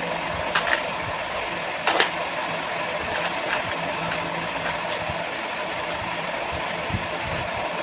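A steady mechanical whir with a faint low hum, with light clicks and clinks of earrings and plastic storage boxes being handled on the floor; the sharpest click comes about two seconds in.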